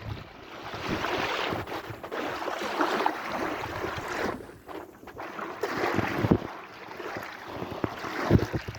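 Sea waves washing in and out, the rush of water swelling and ebbing every second or two, with wind buffeting the microphone in low rumbles near the end.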